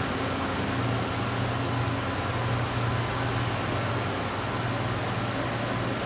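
Mori Seiki SL-25B CNC turning center running under power: a steady low machine hum with a few faint steady tones over an even hiss, with no change in pitch.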